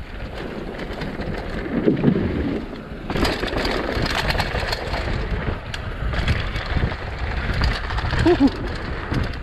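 Mountain bike descending a dirt downhill trail: tyres running over dirt and gravel, with frequent knocks and rattles from the bike over bumps and wind rushing over the microphone.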